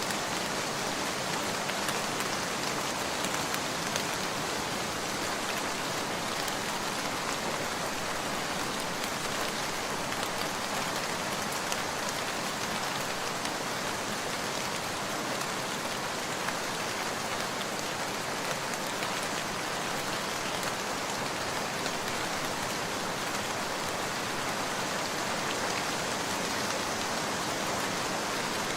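Heavy rain falling steadily, an even hiss with scattered individual drop hits.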